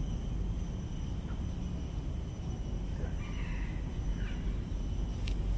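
Outdoor garden ambience: a steady low background rumble, with a bird calling a few short times about three to four seconds in.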